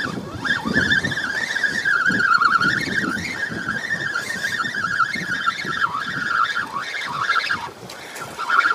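Fishing reel being wound in against a hooked fish, its gears giving a steady wavering whine under the load of the bent rod.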